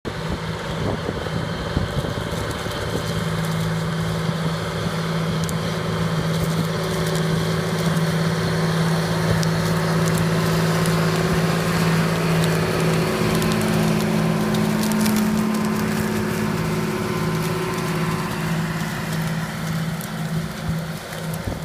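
John Deere tractor's diesel engine running steadily under load, pulling a Köckerling Allrounder stubble cultivator, with crackling of crop stubble and soil being worked by the tines and rollers. It grows louder as the rig passes closest in the middle and eases near the end.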